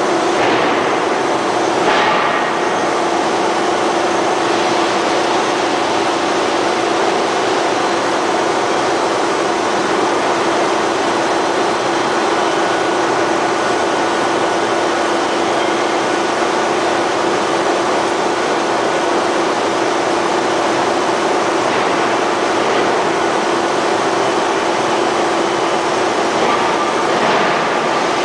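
Radial-axial ring rolling mill running as it rolls a red-hot steel ring: a loud, steady mechanical rumble with a constant hum, and a sharper knock about two seconds in.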